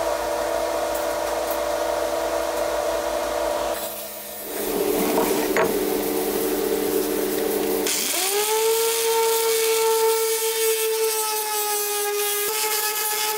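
Small high-speed power tool running against the blued, pitted steel of an axe head, in short edited clips. About two-thirds of the way through it spins up to a steady high whine, then winds down near the end.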